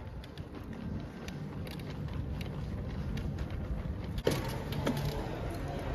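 Outdoor street background noise, a steady low rumble, with a single sharp knock about four seconds in.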